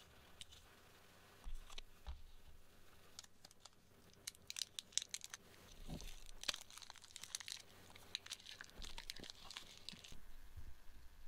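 Plastic packaging and a small paper wipe packet being handled, crinkling in irregular sharp crackles. The crinkling starts about three seconds in and stops near the end.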